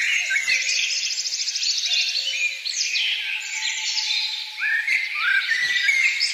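A chorus of several songbirds calling and singing at once: overlapping chirps and quick rising and falling whistles, with a fast trill of repeated high notes about two seconds in.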